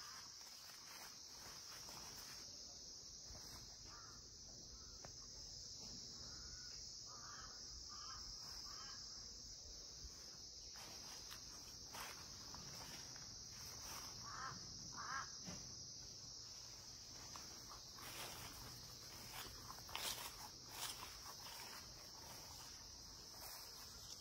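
A steady, high-pitched chorus of insects, faint, with scattered soft clicks and rustles near the end.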